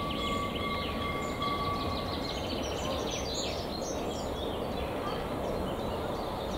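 Songbirds chirping and whistling over a steady low rumble from a small narrow-gauge steam locomotive and its coaches approaching at a distance.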